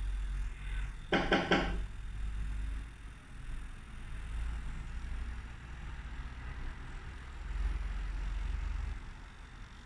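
Electric microneedling pen's motor running with a low, steady hum, with light handling knocks. A short pitched, pulsing sound comes about a second in.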